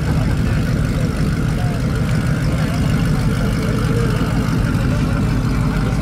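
A car engine idling steadily with a low, even rumble.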